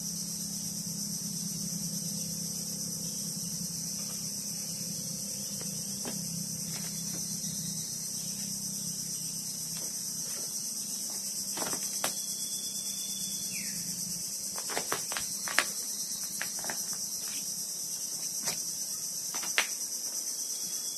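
Steady, high-pitched insect chorus from the mangrove forest. A low hum fades out about two-thirds of the way through, and scattered short clicks and two held whistled notes that drop at the end are heard in the second half.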